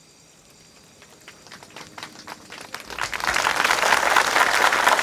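Audience applause: a few scattered claps about a second in, swelling into full, dense clapping from about three seconds on.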